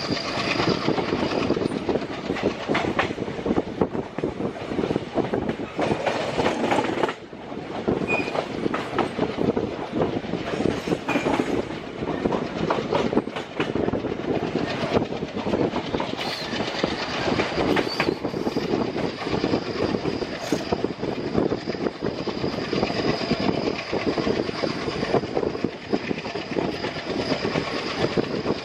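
Express train coaches running along the track, heard from on board: a continuous rattling clickety-clack of wheels over rail joints. A thin high whine comes in at the start and again from about halfway on.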